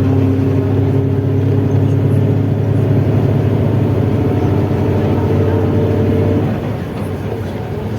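Mercedes-Benz OF-1721 bus under way: a steady drone of the diesel engine and drivetrain with a loud growl from the driveshaft (cardan), held tones running through it. It eases off and quietens about six and a half seconds in.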